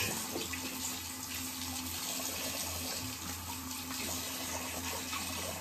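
Tap water running steadily into a bathroom sink, rinsing the razor blades.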